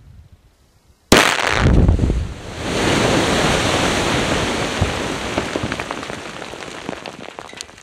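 Quarry blast: the explosive charges in the drilled holes go off with a sudden deep boom about a second in. A long rush of noise from broken rock and debris follows and slowly fades, with scattered clicks of stones landing near the end.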